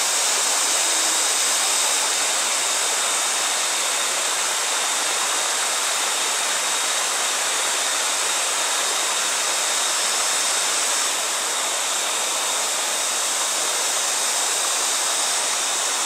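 Waterfall: a steady, unbroken rush of falling water crashing into rock and pool.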